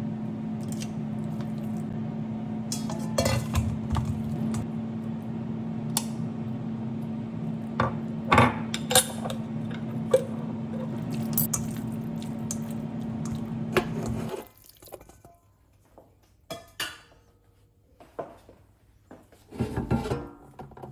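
Steady electric motor hum from a kitchen appliance, cutting off abruptly about fourteen seconds in, with scattered clinks of dishes and utensils over it; a few knocks follow after it stops.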